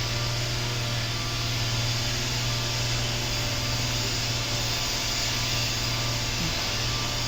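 A steady machine hum with a constant low drone and an even hiss, holding level throughout.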